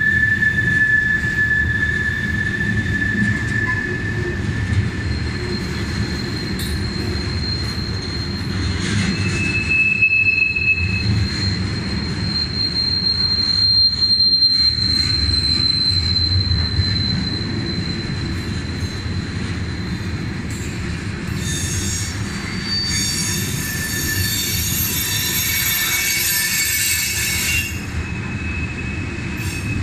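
Loaded freight cars of a KCSM train rolling past close by: a steady rumble of wheels on the rails, with thin, steady, high-pitched wheel squeals that change pitch as different cars go by. From about 22 to 28 seconds in, a brighter, higher squeal and hiss.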